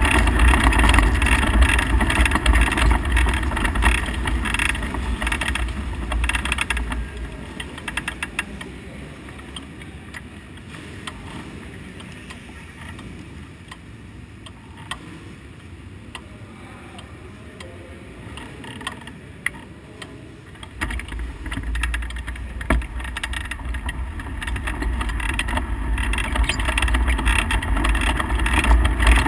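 Onboard sound of a dirt-track midget race car's engine running hard. The engine sound drops away for roughly a dozen seconds, leaving a quieter rush with a few sharp clicks, then comes back about two-thirds of the way through and builds again.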